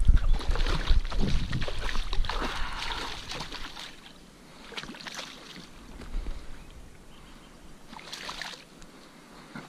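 A hooked pike thrashing and splashing in shallow water as it is reeled to the bank, loudest over the first three seconds, with shorter splashes again around five and eight seconds in.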